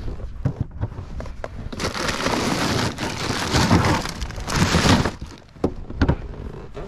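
A striped bass is handled into a cooler of ice, with ice and a plastic ice bag rattling and crinkling for about three seconds. Separate knocks come a little before and again near the end.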